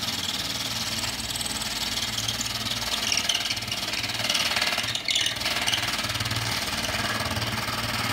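A power tool cutting a hole through drywall for an in-wall speaker. It runs steadily under an uneven load and eases off briefly about five seconds in.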